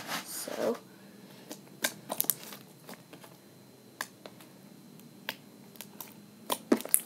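Slime being squished and poked in the hands, making scattered sticky clicks and pops, with a louder cluster near the end.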